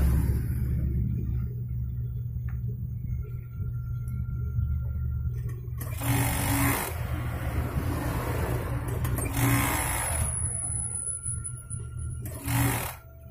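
Industrial Pegasus overlock machine: its motor hums steadily while the machine stitches in three short bursts, each under a second, through the middle and near the end.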